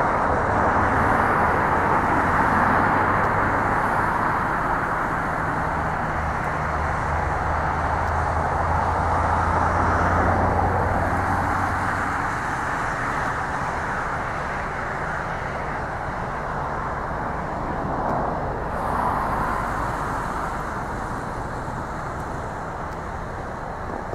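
Boeing 737-800's CFM56 jet engines running at taxi power, a steady distant rush of noise that slowly fades, with a low hum through the first half.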